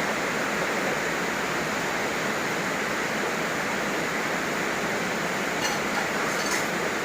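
Heavy rain falling steadily, an even hiss that does not let up, with two faint ticks near the end.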